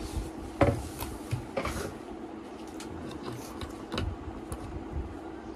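Scattered knocks and clicks of two people eating at a table, handling food and bowls, with the sharpest knock about half a second in. A low steady hum runs underneath.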